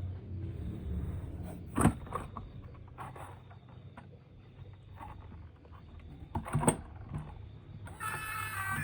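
A low hum, then a few sharp clicks and knocks, the loudest about two seconds in and again near seven seconds in. Music starts near the end.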